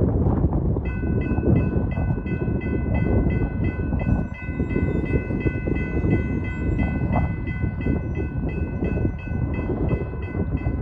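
Grade-crossing warning bell starting to ring about a second in, a repeating metallic chime at about two strokes a second, signalling an approaching train. It sounds over a steady low rumble of wind on the microphone.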